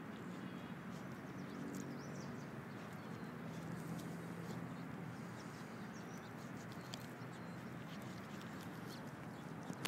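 Alaskan malamute gnawing and chewing on a raw rabbit carcass, with scattered short crunching clicks from teeth on bone, over a steady hiss of outdoor background noise. A few faint high bird chirps.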